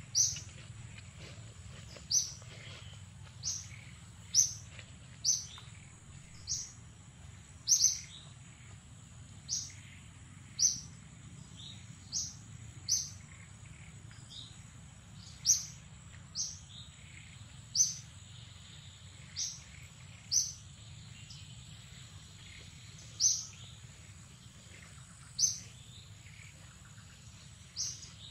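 A bird calling over and over: short, sharp high chirps about once a second, spaced unevenly. Under the chirps run a steady thin high tone and a low rumble.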